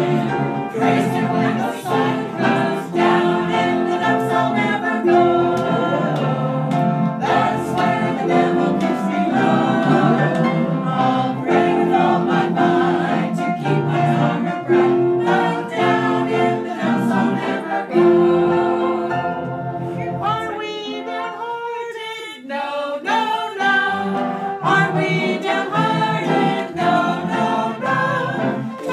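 A small group of voices singing a gospel chorus together to piano and organ accompaniment, with a short softer stretch about three-quarters of the way through.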